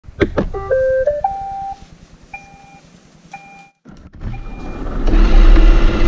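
iRobot Roomba robot vacuum starting a cleaning run: a couple of clicks, then its rising electronic start-up tune of stepped beeps, followed by two single short beeps. Near the end a louder, dense whirring sound with a steady hum builds up.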